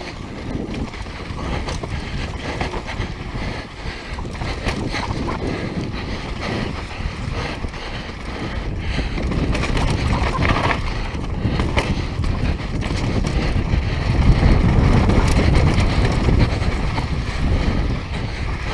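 Mountain bike running fast downhill on a dirt trail: wind buffeting the GoPro microphone over tyre noise and the clatter of the bike over bumps. The rush of wind grows louder about halfway through and again near the end.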